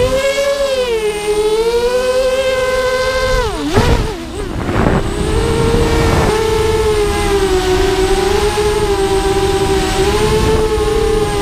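Miniquad's four Emax 2280kv brushless motors spinning 5-inch props, heard from the GoPro on board: a steady whine whose pitch rises and falls with the throttle. About three and a half seconds in, the pitch drops sharply and a rushing noise takes over for about two seconds before the motor whine picks back up.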